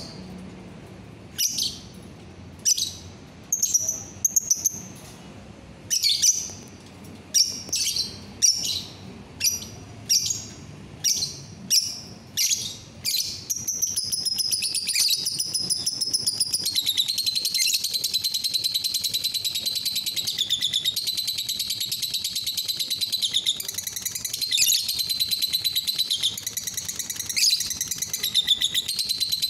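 Lovebird calling: a string of sharp, high chirps about one a second, then, about halfway through, a long, fast, unbroken chattering trill. That trill is the 'ngekek' song that lovebird keepers prize.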